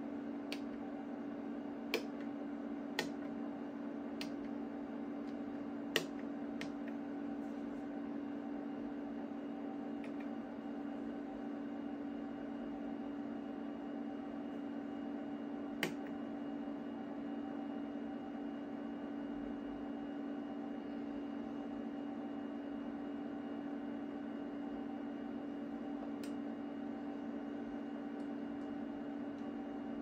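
Steady hum of the cooling fans of running vintage HP test instruments, with several sharp clicks of their front-panel keys being pressed, most of them in the first half and the loudest about six seconds in.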